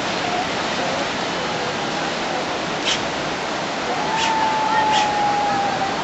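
A fast whitewater river rushing in a steady, loud roar of water. A thin, steady high tone sounds for about two seconds near the end, along with a few sharp clicks.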